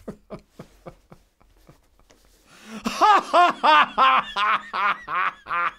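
A man laughing: short, quiet chuckles at first, building about two and a half seconds in into loud, hearty laughter, a run of 'ha' pulses about three a second.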